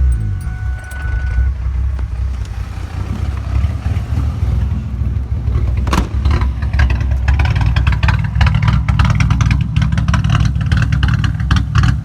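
3.8-litre V6 engine running raw and uneven with its brake-booster vacuum hose pulled off: the vacuum leak makes it idle like a cammed engine. A sharp click comes about six seconds in.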